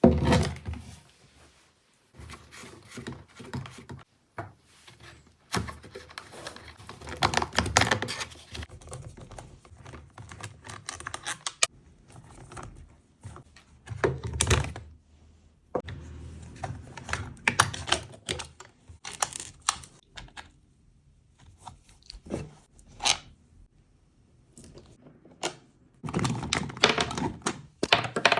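Irregular clatter, clicks and knocks of tools and parts being handled, in bursts with short quiet gaps between them; no engine is running.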